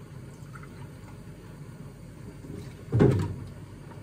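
Vinegar being poured from a plastic jug into a small glass, with one low thump about three seconds in.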